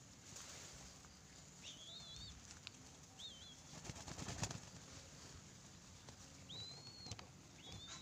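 Young ringneck dove squabs (puter blorok) flapping their wings while they beg at a hand-held feed bundle, with a louder flurry of wingbeats about four seconds in. Short, thin, wavy high chirps come several times.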